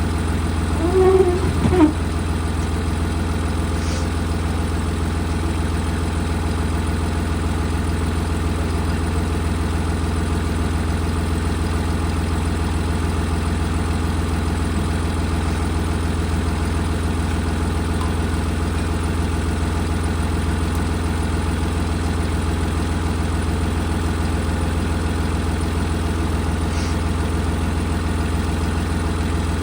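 Old John Deere tractor engine running steadily at a low idle, with a short wavering squeak about a second in.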